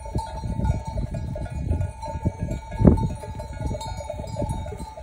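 Bells on a flock of grazing sheep ringing steadily and continuously, over an uneven low rumble. There is one loud thump about three seconds in.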